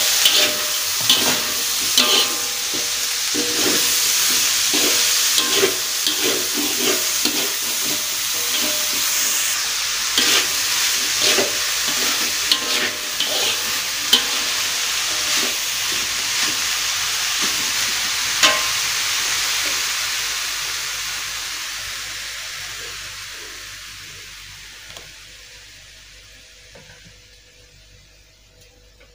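Sliced green beans, chillies and petai sizzling in hot oil in a metal wok, with a metal spatula scraping and clattering against the pan as they are stirred. From about two-thirds of the way in, the sizzle and clatter fade steadily away.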